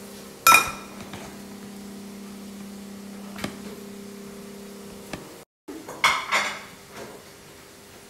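A metal spoon clinking and scraping against a ceramic plate as sauce is spread over flatbread: one sharp ringing clink about half a second in, a few light taps, then two more clinks about six seconds in. A steady low hum runs underneath until about five seconds in.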